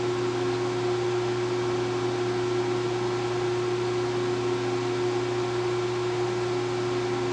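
Steady machine-shop hum: an even hiss with a few constant low tones, from running shop machinery.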